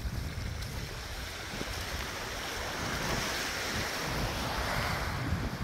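Wind buffeting the phone's microphone over the steady wash of small waves on a sandy beach, the surf hiss swelling about three seconds in.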